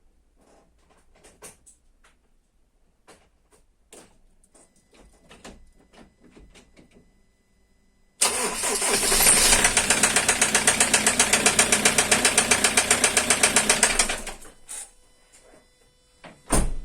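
Ford Transit 2.2 diesel engine starts suddenly about eight seconds in and runs for about six seconds with an even, rhythmic knock, then stops. The knock is typical of a worn connecting-rod bearing, which the mechanic suspects. Faint clicks come before it, and a loud thump near the end.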